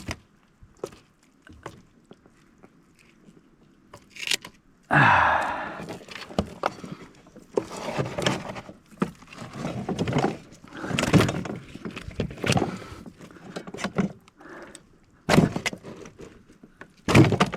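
Irregular knocks, thuds and rattles of a fish and gear being handled on a plastic fishing kayak while a freshly caught red snapper is bled.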